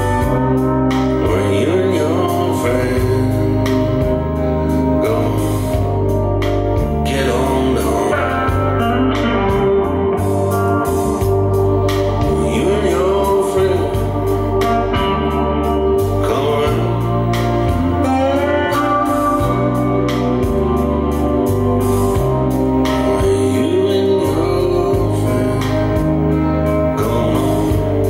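Music played through a Harman Kardon Aura Studio speaker: a song with a sung vocal over guitar and strong, steady bass notes.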